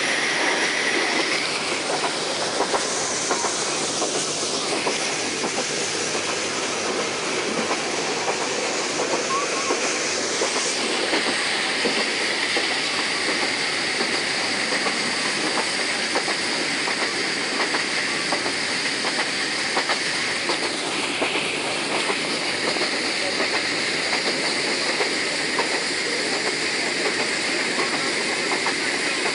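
Bangladesh Railway train running along the track: a steady rumble and hiss of wheels on rail with faint, rapid clickety-clack, its high-pitched hiss shifting in pitch a couple of times.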